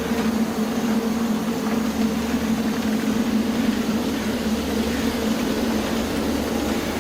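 Steady dark ambient drone: a continuous low rumble with a held low hum under it, unchanging throughout.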